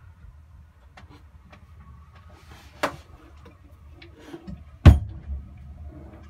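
A few light clicks and two sharp knocks inside a boat's hull, the second one, about five seconds in, the loudest and deepest, over a low steady rumble.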